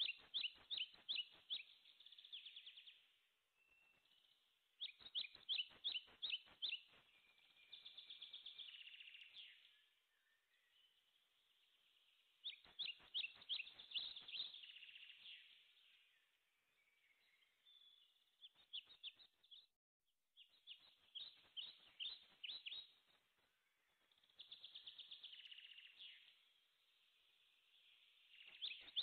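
Faint songbird singing: runs of rapid, high chirps, each about two seconds long, repeating every few seconds with softer warbling between them.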